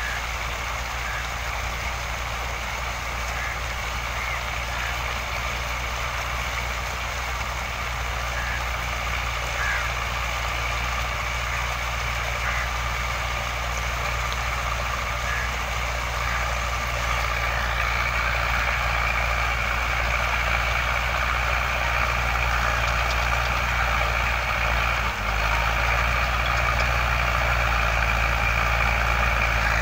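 Tractor engine running steadily as it pulls a plough through the soil, growing a little louder in the second half.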